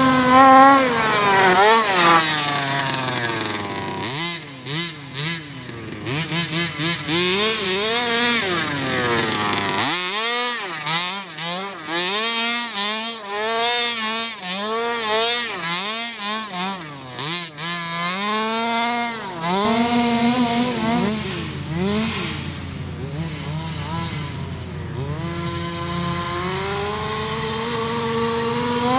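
29 cc two-stroke petrol engine of a large-scale Baja RC buggy, revving up and down over and over as it is driven, its pitch rising and falling with the throttle and dropping briefly between blips. Near the end the pitch climbs steadily.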